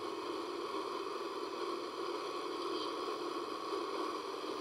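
Small single-engine plane's engine and propeller running steadily, heard from inside the cabin as the plane rolls along the runway. It comes through thin and hissy, as the playback of an old video recording.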